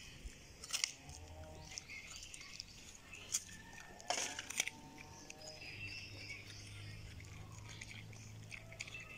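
A pig chewing and crunching food off the ground, with a few sharper crunches about a second in and again around three and a half to four and a half seconds.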